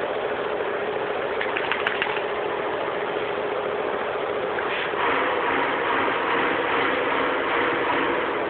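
A steady motor hum that gets a little louder and takes on an added lower tone about five seconds in, with a few faint clicks about two seconds in.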